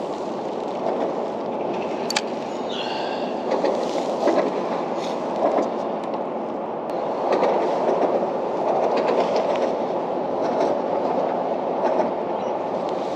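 Road traffic rumbling steadily across the concrete bridge deck overhead, swelling and easing as vehicles pass, with a few sharp clacks.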